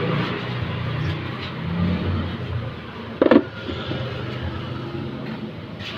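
Honda Beat scooter engine idling with the CVT cover off, with one short, loud squeak a little over three seconds in. This is the 'pinched mouse' CVT squeal, which the mechanic traces to a dry front pulley whose three balls lack grease.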